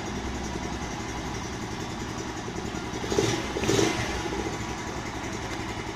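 Gazgas Monkey mini motorcycle's single-cylinder engine running at idle just after being started, with two brief louder bursts about three and four seconds in.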